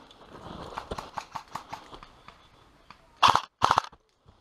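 Footsteps crunching on dirt and dry leaves, fading out over the first two seconds. Near the end, two short loud bursts of fire from an airsoft electric rifle (AEG).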